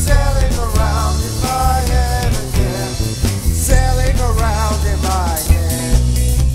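Rock band playing a song: drum kit, bass and guitar under a sung lead vocal with wavering, sliding notes. The vocal line ends about five seconds in and the band plays on.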